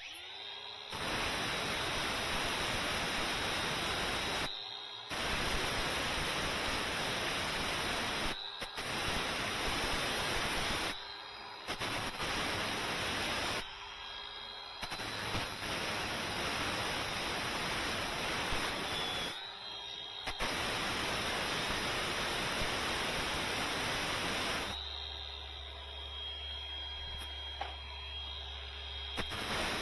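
Steady, loud hissing noise from a tool cleaning rust off the steel seat base. It runs in bursts of several seconds and cuts off abruptly for short breaks, about five times.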